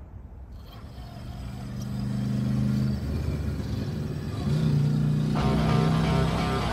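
Truck engine sound, a steady low hum that fades in and grows louder, then revs up a little past the halfway point. Rock music comes in near the end.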